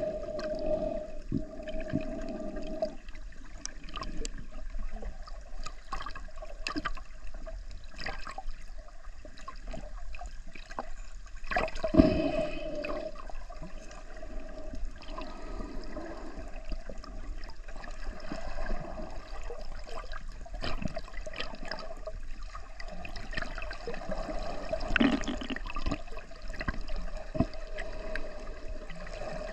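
Underwater sound heard by a camera just below the surface: muffled sloshing and gurgling water with scattered clicks and crackles over a steady hum. The loudest event is a thump about twelve seconds in, with another louder swell of water near the end.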